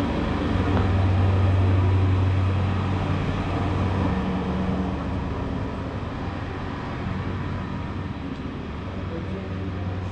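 A large vehicle passing close by: a low hum that swells about a second in and then slowly fades, over steady background noise.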